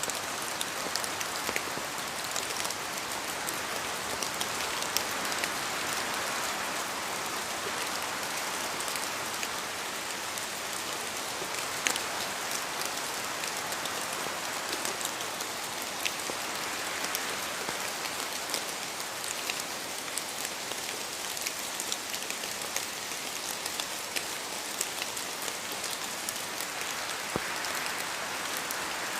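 Steady rain in a forest, drops falling from the trees and hitting leaves as many separate sharp taps over an even hiss of rainfall, with one louder drop about twelve seconds in.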